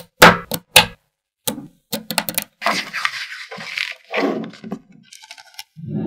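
Small magnetic balls clicking and clacking together as hands press sections of a magnet-ball model into place and pull blocks apart. A few sharp separate clicks come first, then a quick run of clicks and a longer rattling scrape of many balls shifting against each other, then a few faint ticks near the end.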